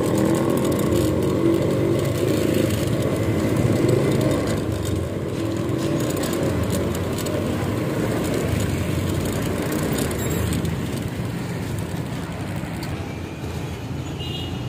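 Street traffic: motor vehicles running close by in a steady urban din.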